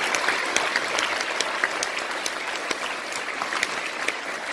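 Banquet audience of many people applauding, the clapping slowly dying down.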